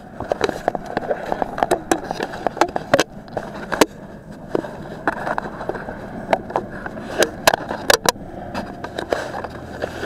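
Hands handling a Mobius action camera strapped to a quadcopter: irregular clicks, knocks and rubbing right on the camera's microphone.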